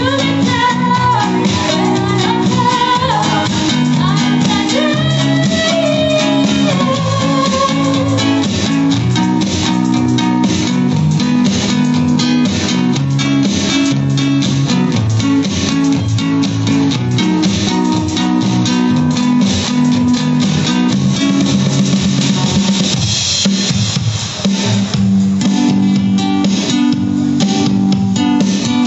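Instrumental music from guitar and drum kit: plucked guitar chords with a steady beat and a melodic lead line, no vocals.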